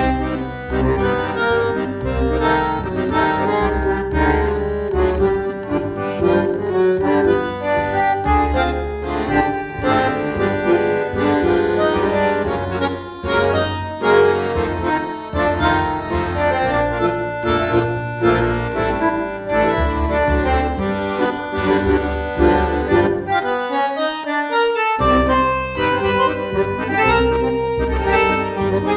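Tango music led by an accordion-like reed instrument, with a bass line that drops out for about a second near the end before the full band comes back in.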